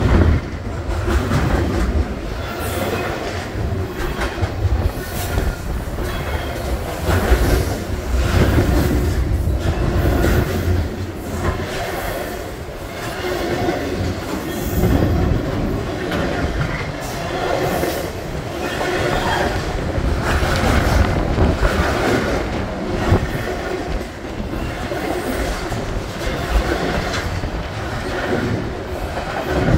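CSX double-stack container train rolling past below: a steady rumble of the cars with irregular clacks and clanks of wheels over the rail joints.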